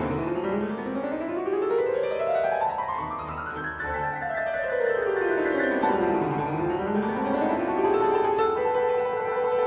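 Background instrumental keyboard music: runs of notes climb for a few seconds, fall, then climb again over held notes.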